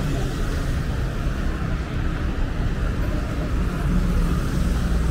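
City street ambience: a steady low rumble of road traffic with general outdoor urban noise.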